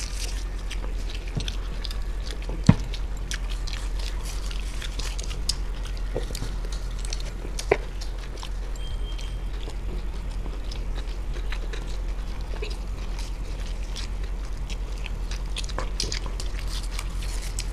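Two people biting into and chewing egg rolls: soft wet chewing with many small mouth clicks, over a steady low hum. Two sharper clicks stand out, about 3 and 8 seconds in.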